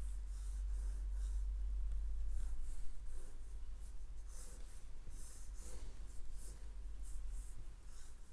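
Marker nib scratching across paper in a quick series of short, irregular strokes as hair is sketched in. A steady low hum runs underneath.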